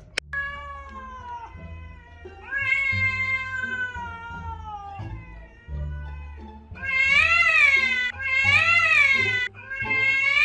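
A cat meowing in a string of long, drawn-out yowls, the last few louder and rising then falling in pitch, over background music with a low bass line.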